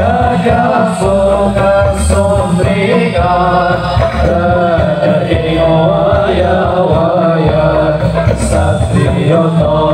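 Live Islamic devotional group music played loud through stage speakers: men's voices chanting and singing together over steady, pounding low drum beats, with a few sharp high strikes.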